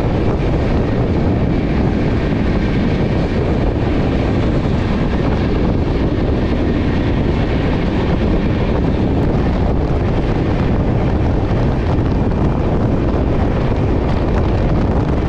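The 12307 Howrah–Jodhpur Superfast Express running at speed: a loud, steady rush of wind and rumble of wheels on the track, heard from the coach doorway with wind on the microphone.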